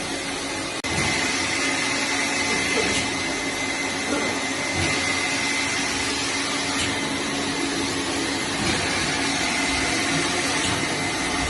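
Glass bottle washing machine running steadily: a continuous motor-and-pump noise with a high, even whine. There is a brief dropout about a second in.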